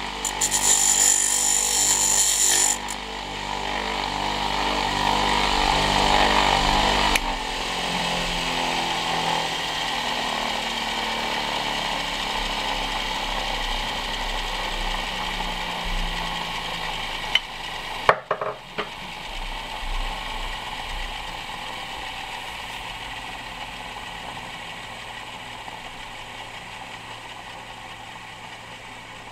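Homemade mini wood lathe running, its wooden blank spinning at about 2400 rpm. For the first couple of seconds a cutting tool scrapes the spinning wood with a loud hiss; after that the motor hums on, with a few sharp clicks about 18 seconds in.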